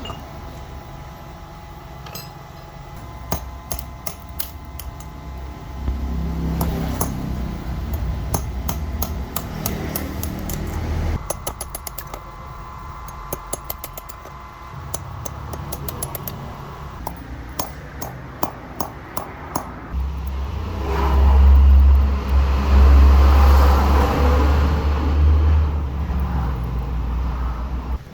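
Workshop work on metal: a run of sharp clicks and taps, with a low machine drone that comes in twice, loudest from about twenty seconds in.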